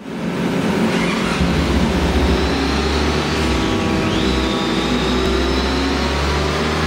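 Honda ST1300 Pan European's V4 engine, stock, running steadily in gear and driving the rear wheel on a motorcycle dynamometer. A high whine dips briefly and climbs back about four seconds in.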